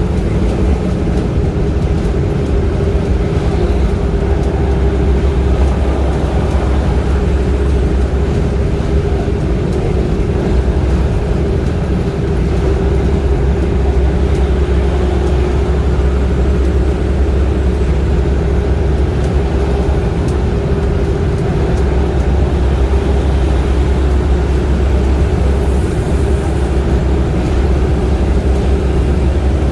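A vehicle driving at highway speed: a steady low rumble of road and engine noise with a constant droning hum.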